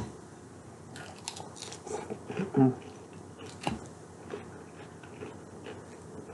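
Close-up eating sounds of a chicken Caesar salad: moist chewing with scattered crunchy clicks, thicker in the first few seconds, and one louder low sound about two and a half seconds in.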